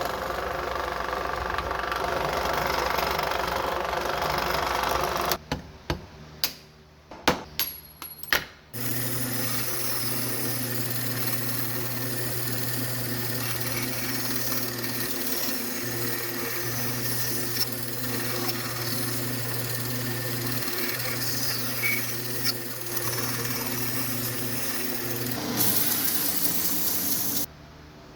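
Workshop power tools running: a steady machine noise, broken by a handful of sharp knocks about five to nine seconds in, then a motor running with a steady hum that cuts off suddenly near the end.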